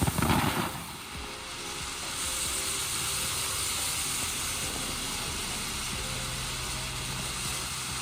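TNT Torch fountain firework spraying sparks with a steady hiss. A louder passage cuts off under a second in.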